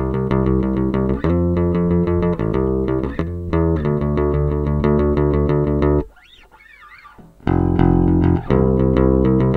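SX PJ electric bass guitar being plucked, playing a bass line of held notes that change about every second, with a break of about a second and a half about six seconds in before the playing resumes.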